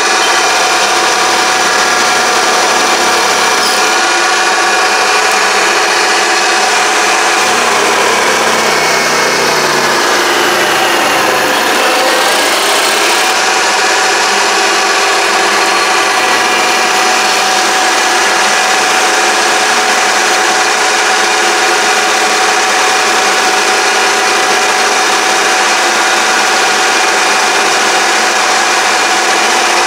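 Mini lathe running steadily with a whine of several steady tones over a rushing noise; about ten seconds in the pitch dips and comes back up over a couple of seconds.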